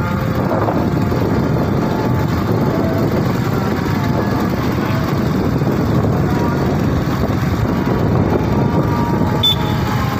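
Motorcycle running steadily at road speed, its engine noise mixed with a steady rush of wind over the microphone.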